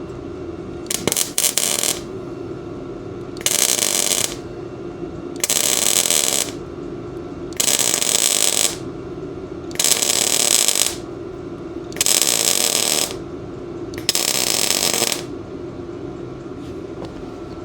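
Bestarc MIG 145 welder stitch welding thin metal: seven short bursts of arc crackle, each about a second long and roughly two seconds apart, over a steady background hum.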